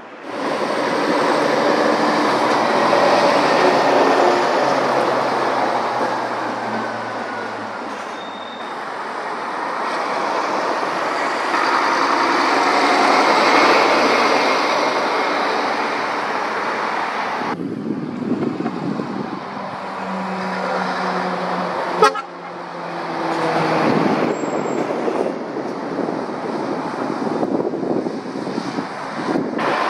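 Lorries driving past on a main road: diesel engines and tyre noise swelling and fading, in several short clips joined by sudden cuts, with a sharp click about 22 seconds in.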